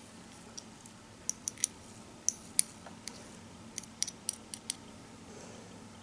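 Small, sharp plastic clicks and taps of a tiny plastic spatula knocking against a miniature plastic dish while scraping sugar into a toy pot, in a few irregular clusters.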